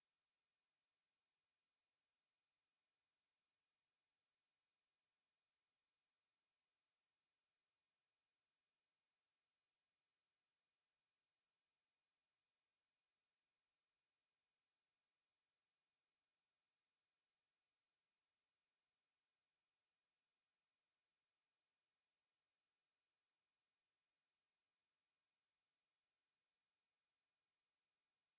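A steady, high-pitched 6634 Hz sine-wave test tone, one pure unbroken pitch at constant level.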